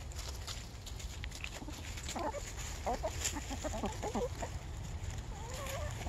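Backyard hens clucking, a quick run of short calls about two seconds in and a longer rising-and-falling call near the end. Their feet scratch through dry leaves in scattered light clicks.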